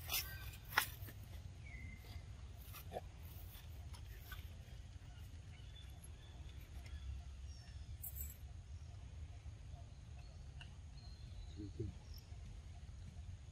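Quiet outdoor ambience: a steady low rumble with a few sharp clicks, the loudest about a second in, and some faint short chirps.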